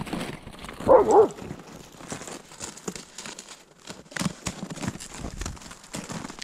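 Dogs running through deep snow: a dog gives two quick yips about a second in, then a string of uneven crunching footfalls in the snow.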